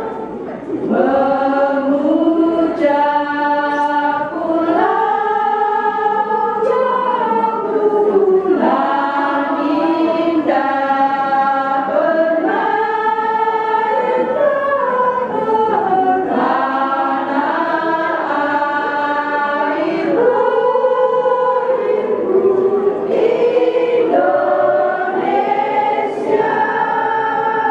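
Women's choir singing in several parts, unaccompanied, in sustained phrases of a few seconds each.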